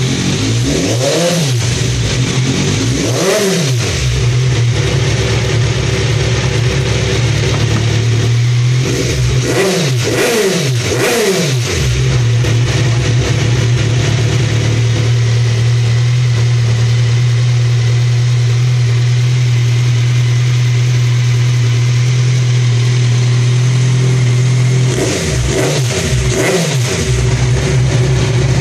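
Kawasaki Z1000's inline-four engine through an aftermarket Vance & Hines exhaust, idling steadily and blipped up and back down in short revs: two at the start, a quick run of several about ten seconds in, and two more near the end.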